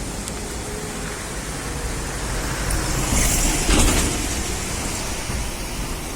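Car driving, with steady engine rumble and road noise that swells into a louder rushing hiss about three to four seconds in.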